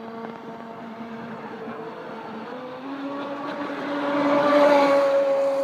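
Radio-controlled model speedboat's motor whining across the water. The pitch steps up about halfway through as it speeds up, and it grows loud as the boat passes close, then begins to fade.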